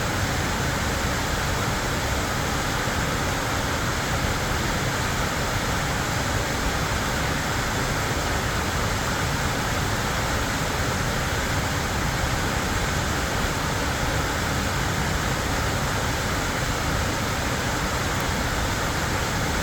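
Creek waterfall: water pouring and splashing in a steady, unbroken rush.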